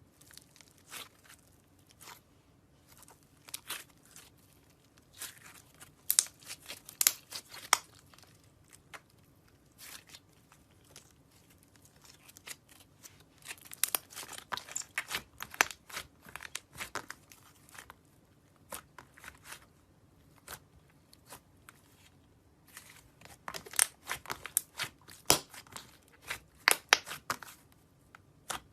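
Colored slime being squeezed and worked by hand. It makes sticky clicks and crackling pops in irregular clusters, with quieter gaps between.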